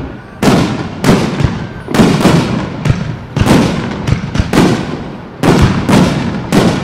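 Aerial firework shells bursting in quick succession: loud sharp booms about two a second, some heavier than others, each trailing off in a rolling echo.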